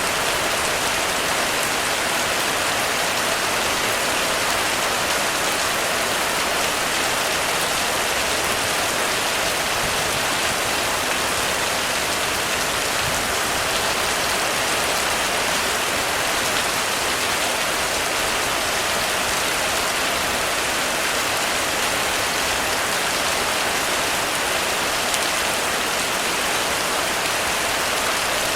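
Heavy rain falling steadily on a roof, an even, unbroken hiss.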